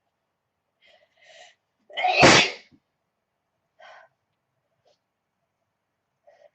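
A young woman's allergy sneeze: two short catching breaths about a second in, then one loud, sudden sneeze about two seconds in. A few faint short sounds follow.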